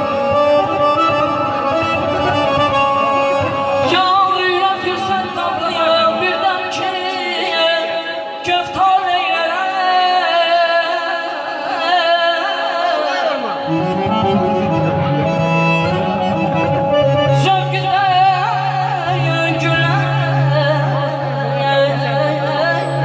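Music: a voice singing a wavering, ornamented melody over held instrumental notes.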